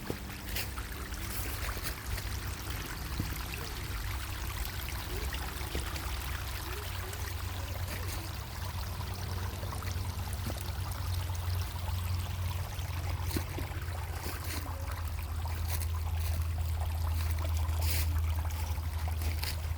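Creek water running and trickling, a steady rush, with a steady low rumble underneath.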